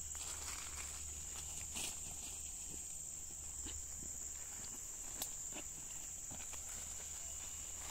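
Steady high-pitched drone of an insect chorus, with a few scattered footsteps and clicks from walking over dry ground among palm fronds.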